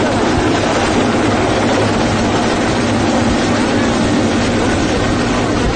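Military helicopter running: steady loud engine and rotor noise without a break.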